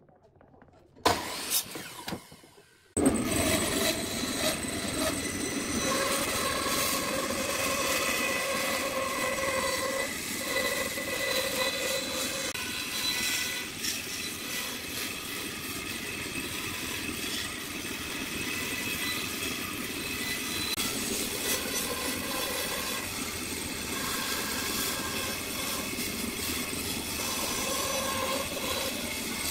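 Bandsaw running steadily as its blade cuts a curve through a softwood board. A few sharp, loud knocks come in the first seconds, before the steady running starts.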